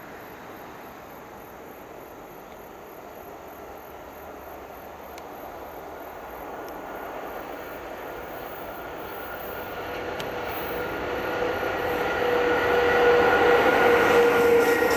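Electric locomotive hauling a container freight train as it approaches and passes: a rumble of wheels on rail that grows steadily louder, with a steady whine coming in over the last few seconds as the train draws close.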